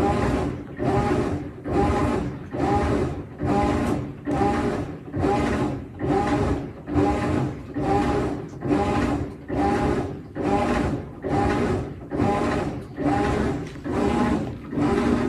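Washing machine agitator running, its motor humming in regular strokes about once a second.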